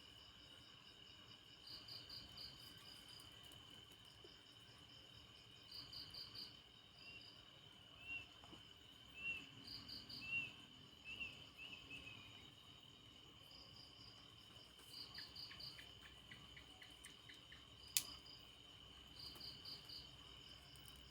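Night insects: a steady high-pitched drone, with a cricket's chirps in short quick pulse groups every few seconds. A run of short chirps comes in the middle, then a rapid train of ticks and one sharp click near the end.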